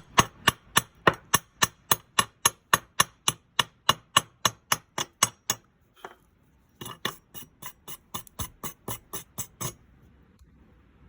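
Rapid metal-on-metal knocks on two bolts welded together, about four a second: a long run for about five seconds, a short pause, then a second run of about three seconds.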